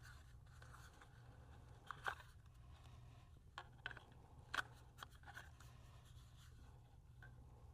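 A few light clicks and taps from the DJI Pocket 3 being handled and fitted into its protective case, one about two seconds in and a cluster between three and a half and five and a half seconds, over quiet room tone.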